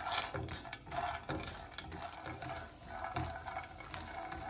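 Peanuts frying in hot oil in a nonstick frying pan, sizzling while being stirred with a silicone spatula in repeated strokes.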